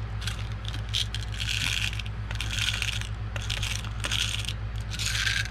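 Small loose metal parts rattling and scraping as they are handled, in about four short bursts, over a steady low electrical hum.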